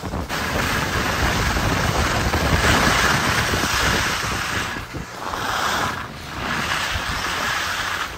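Steady rushing noise of wind buffeting the microphone, dipping briefly about five and six seconds in.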